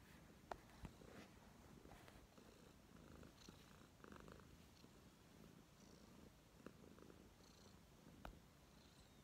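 Tabby cat purring steadily and softly while being stroked close to the microphone, with a few light clicks near the start and near the end.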